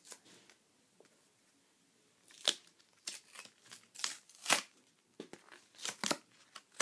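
Micro SD card's retail packaging being torn and pried open by hand: after a quiet start, a string of sharp crackling tears and crinkles begins about two and a half seconds in.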